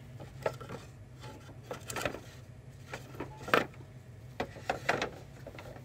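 Light wooden clacks and knocks as thin wooden hanging signs are flipped through on a metal pegboard hook, the loudest about three and a half seconds in, over a steady low hum.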